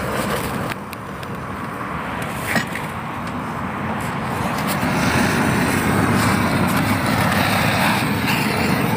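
Gas-cartridge blowtorch burning with a steady hissing rush as its flame is played over a beehive's metal mesh bottom board to sterilize it, getting louder about halfway through. One sharp click about two and a half seconds in.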